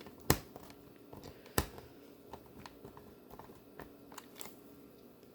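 Hands handling a plastic VHS cassette and its parts: two sharp clicks, one just after the start and one about a second and a half in, with scattered lighter ticks and rustles between.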